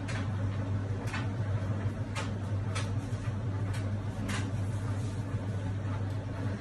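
Tumble dryer running with a steady low hum, with a few light clicks and knocks in the first four seconds or so.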